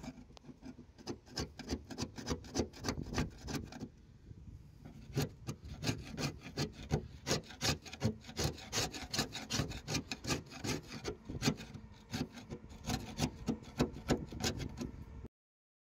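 A hand scraper blade is pushed across a narrowboat's rusty steel roof, chipping off flaking paint and rust. The scraping comes in quick, repeated short strokes, with a brief lull about four seconds in, and cuts off suddenly near the end.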